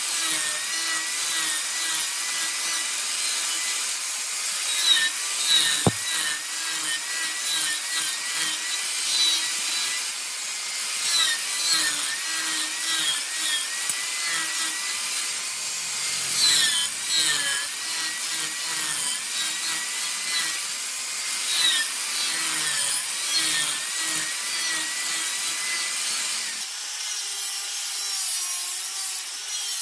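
Angle grinder with an abrasive disc grinding into a wooden turning on a lathe: a steady motor whine under a rough hiss that rises and falls as the disc bites into the wood. There is a sharp click about six seconds in. Near the end the sound changes as a grinder with a sanding pad takes over.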